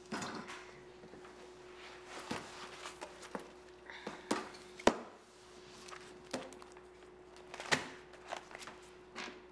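School supplies handled on a classroom desk: scattered sharp knocks, clicks and rustling, the loudest a sharp knock about five seconds in, as a ring binder is opened near the end. A steady low hum runs underneath.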